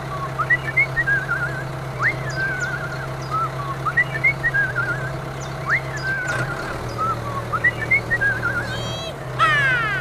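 A steady low engine-like hum under bird-like whistled chirps and warbling trills that repeat about every two seconds.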